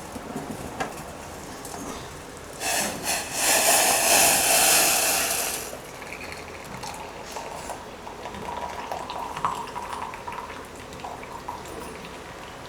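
Hot herbal decoction poured from the pan through a strainer into a glass, a steady liquid pour lasting about three seconds a few seconds in, followed by faint small clinks.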